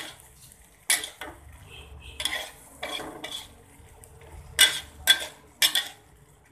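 A metal utensil stirring broccoli stir-fry in a pan: about ten sharp scrapes and clinks against the pan, coming in irregular groups with short pauses between them.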